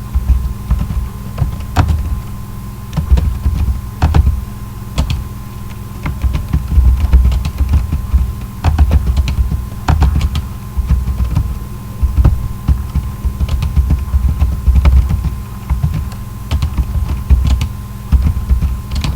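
Typing on a computer keyboard: quick, irregular keystrokes over a steady low hum, with dull low thuds coming and going.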